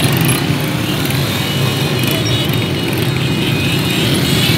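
Several small motorcycles running close together, their engines a dense, steady drone with no let-up.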